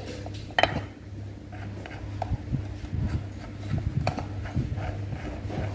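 Metal engine parts clicking and knocking as the rocker arm assembly is fitted onto a motorcycle cylinder head, with one sharp knock about half a second in and lighter taps after it, over a steady low hum.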